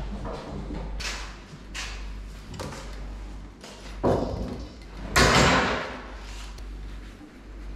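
Snake-handling noises as a black mamba is lifted from a wooden box and pinned with tongs and a hook on a rubber mat: a run of bumps, knocks and scrapes, with a sharp knock about four seconds in and the loudest, longer noisy burst about a second after it.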